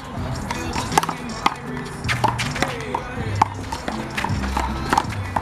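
A rubber handball (big blue ball) being slapped by hands and striking the wall and ground in a one-wall handball rally: sharp smacks about twice a second. Music plays underneath.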